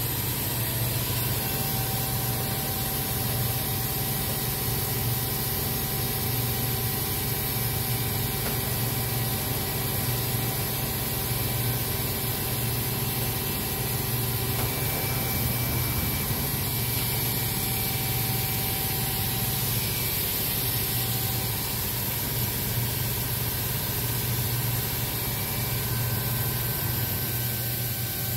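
OKK HM6300S horizontal machining center running during a rapid-traverse axis demonstration: a steady low hum and hiss, with faint motor whines that come and go as its axes move.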